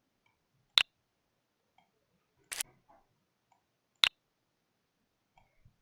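Three sharp computer mouse clicks, roughly a second and a half apart, with near silence between them.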